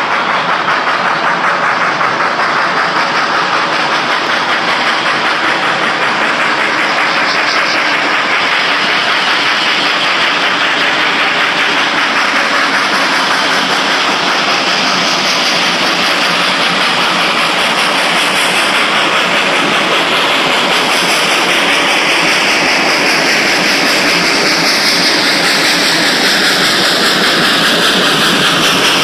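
Steady rushing road and wind noise from a car driving along a highway, with a working steam locomotive running alongside on the parallel track.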